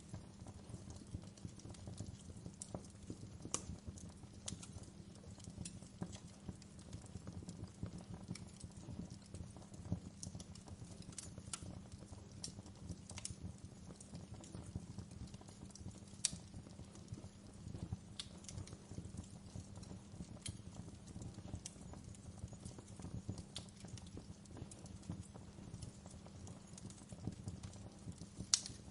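Wood fire in a fireplace crackling: irregular sharp pops and snaps over a steady low rumble of the flames, with louder pops about sixteen seconds in and near the end.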